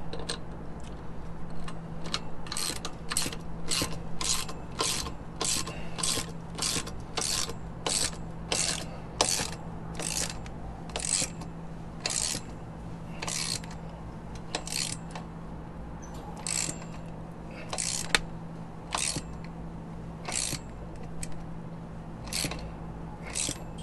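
Socket ratchet wrench tightening the nuts on a SumoSprings bracket over a trailer leaf-spring axle, with a quick burst of ratchet clicks on each back-swing. The strokes come about two a second at first, then slow and grow sparse in the second half, over a steady low hum.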